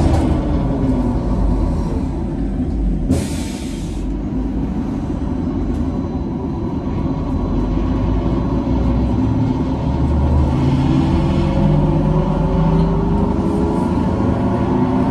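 2004 Neoplan electric trolleybus in motion, heard from inside: the electric traction motor's whine glides down in pitch at first, then climbs again later as the bus gathers speed, over a steady road rumble. About three seconds in there is a short, sharp hiss lasting under a second.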